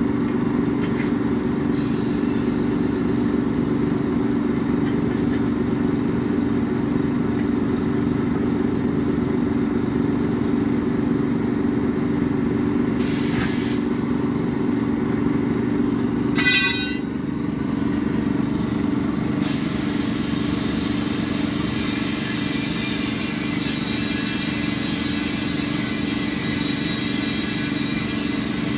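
An engine runs steadily throughout while a truck tire is aired up through a compressed-air hose. Air hisses briefly about 13 and 16 seconds in, and a steadier hiss runs from about 20 seconds on.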